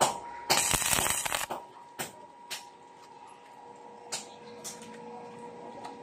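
Stick arc welding on a steel gate track: a crackling arc of about a second near the start, with sharp clicks before and after it as the rod is tapped on the steel, over a faint steady hum.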